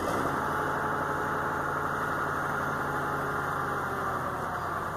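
A motor vehicle engine running with a steady hum. It comes in suddenly at the start, holds for about four seconds and eases off near the end.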